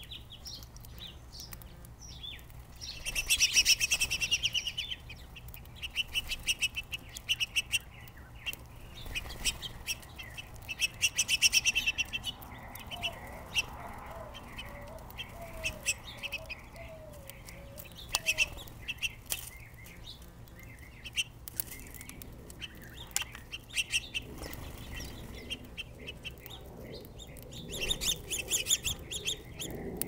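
House finches at a seed feeder: several short bursts of rapid chirping chatter and wing flutter, the loudest about three seconds in, again just before the middle and near the end, with scattered small clicks in between.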